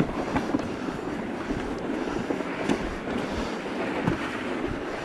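Footsteps crunching now and then on a snow-dusted gravel road, under steady wind noise on the microphone.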